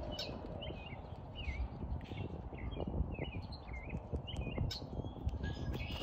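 Small birds chirping in short repeated notes, about two a second, over a steady low rumble.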